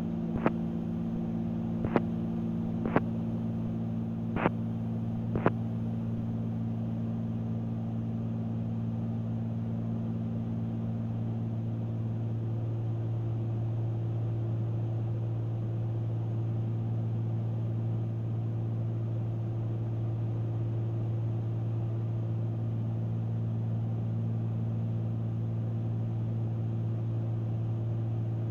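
Cessna 310Q's twin piston engines and propellers droning steadily in flight, a constant hum made of several low tones. Five sharp clicks come in the first six seconds.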